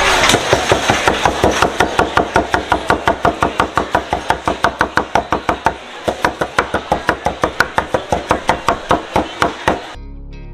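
Long kitchen knife chopping smoked brisket on a wooden cutting board: rapid, even strokes of the blade hitting the board. There is a short break near the middle, and the chopping stops near the end.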